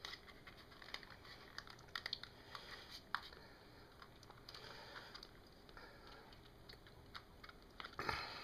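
Small plastic clicks and crackles from a glued plastic power-supply case being squeezed to break its glued seam, scattered irregularly, with a louder cluster near the end.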